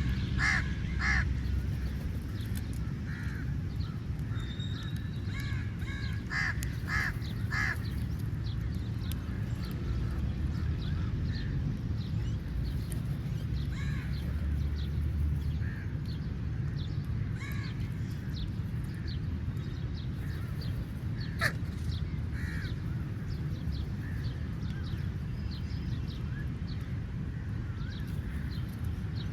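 Crows cawing: a pair of harsh caws at the start, a quick run of several around six to eight seconds in, then scattered calls, over a steady low rumble.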